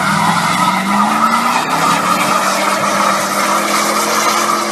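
1996 Ford F150 pickup doing a burnout, its line lock holding the front brakes: the rear tires spin and squeal loudly and steadily while the engine revs, its pitch rising slowly.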